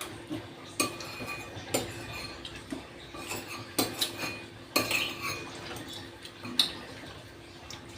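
Spoon and fork clinking against a plate while eating, a handful of sharp, irregular clinks.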